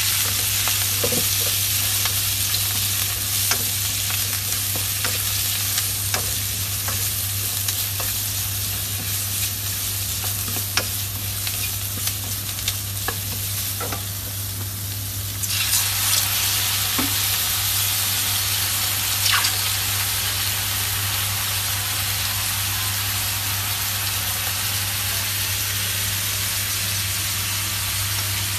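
Pork and vegetables sizzling in a hot steel wok as they are stir-fried, with a spatula scraping and knocking against the metal. About halfway through the sizzle suddenly gets louder and brighter. A steady low hum runs underneath.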